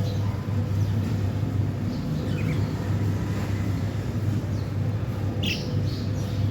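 Small birds chirping: a couple of faint falling chirps partway through and a short burst of high calls near the end. Under them runs a steady low rumble, the loudest sound here.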